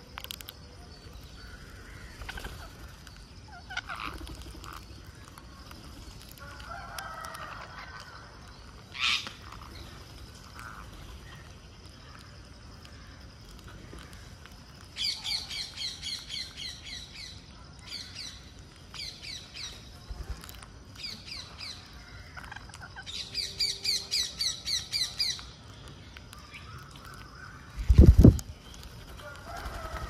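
Rose-ringed parakeets calling in two runs of quickly repeated calls, a few calls a second, one about halfway through and another a few seconds later, each lasting two to three seconds. A loud low thump comes near the end.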